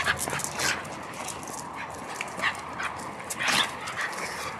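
Shiba Inu dogs playing, giving a string of short yips and whimpers, with a longer, louder call about three and a half seconds in.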